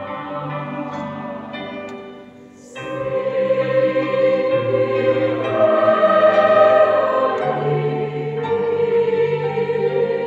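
Chamber choir and children's choirs singing a Christmas carol together in a church, sustained many-voiced chords. The voices fade briefly between phrases about two and a half seconds in, then come back in fuller.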